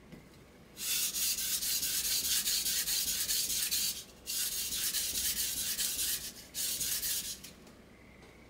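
Kitchen knife blade being stroked back and forth on a wet whetstone: quick, gritty scraping strokes that start about a second in and come in three runs, with two brief pauses.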